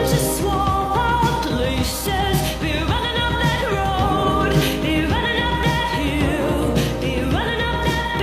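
Pop song with a singing voice over a steady beat and bass.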